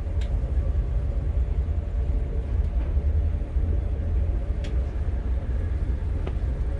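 Low, steady rumble of the boat's MerCruiser 7.4 L inboard engine idling, with a few faint clicks.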